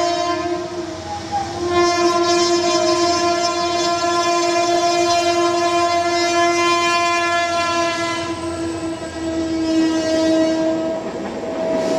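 Train horn held in one long steady blast, breaking off briefly about a second in and re-sounding, over the steady rush of the train ploughing through deep flood water.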